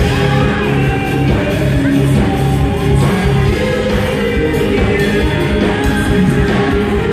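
Loud live band music with a singer and a steady beat, played over a nightclub's sound system.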